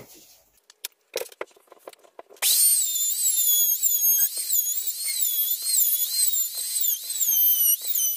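Router running and cutting a chamfer along the edge of a round wooden disc: a loud, high whine whose pitch dips and recovers again and again as it bites. It starts about two and a half seconds in, after a few clicks and knocks.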